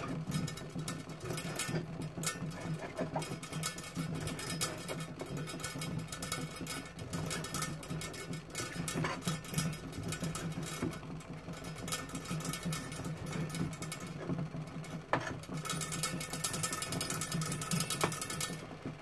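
Kitchen knife slicing raw chicken breast on a plastic chopping board, the blade tapping and clicking against the board again and again, over a steady low hum.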